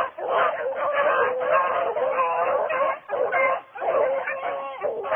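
A pack of beagles baying together in full cry, many overlapping drawn-out howls and yelps, the sound of the hounds running a rabbit's trail.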